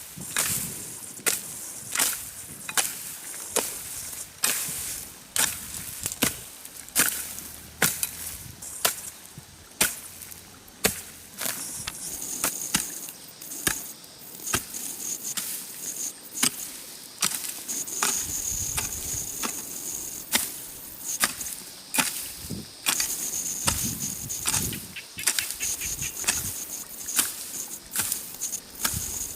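Hand tool chopping into grass and soil, a hoe or shovel blade striking the ground in a steady run about once a second, clearing grass by hand.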